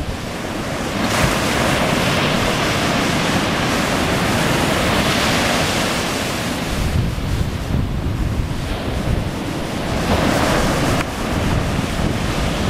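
Ocean surf breaking and washing up the beach, a rushing hiss that swells as each wave comes in, loudest over the first few seconds and again near the end. Wind buffets the microphone with a low rumble throughout.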